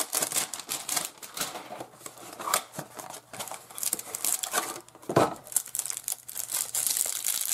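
Trading-card packaging being opened by hand: a plastic wrapper crinkling and tearing, with irregular crackles and rustles.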